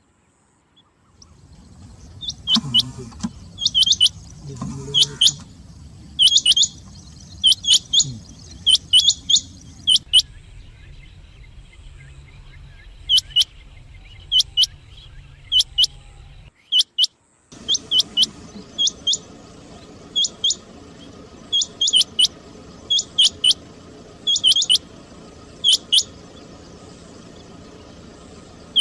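Rain quail calling: short, sharp, high double notes repeated about once a second, with two brief dropouts in the recording, one near the start and one just past the middle.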